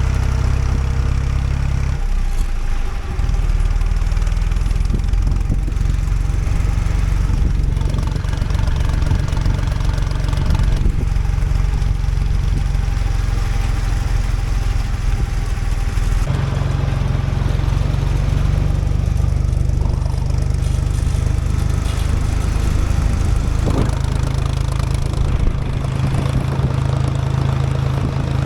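Farm vehicle engine running steadily, its note shifting about two seconds in and again a little past halfway.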